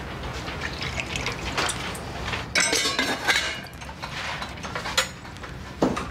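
Tea poured from a steel teapot into a glass, then the clink and clatter of glass, plates and cutlery on a breakfast tray as it is set and picked up. There is a louder clatter about halfway through and two sharp knocks near the end.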